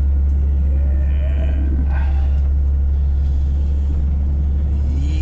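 Heavy dump truck's diesel engine running, a steady low rumble heard inside the cab.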